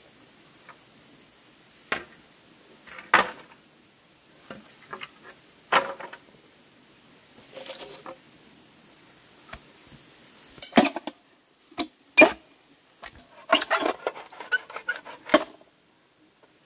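A machete and green bamboo poles knocking and chopping as the bamboo is worked. Single sharp knocks come every few seconds, then a quick run of knocks and cracks close together near the end.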